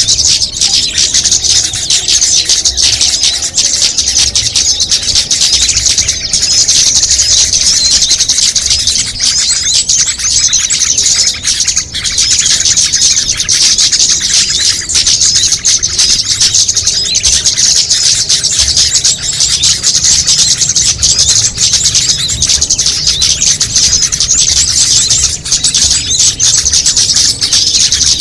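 Dense, unbroken high-pitched chirping and twittering of many small songbirds layered together: a bird-luring call mix meant to draw small birds in.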